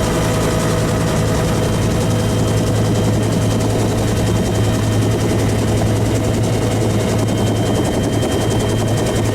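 Helicopter running close by, loud and steady, with a rapid even beat from its rotor.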